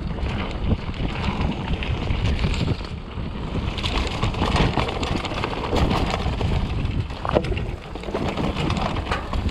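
Wind buffeting a GoPro action camera's microphone as a Raleigh Tokul hardtail mountain bike descends a dirt trail, with tyres rumbling over the ground and frequent short knocks and rattles from bumps through the unsuspended rear.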